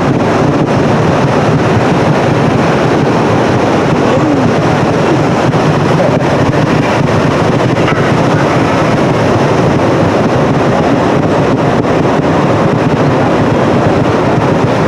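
Steady wind noise on the microphone, an even rushing at constant loudness.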